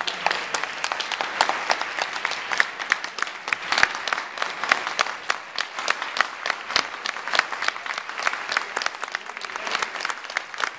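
Large audience applauding: many people clapping at once, with a few sharp, louder claps close by.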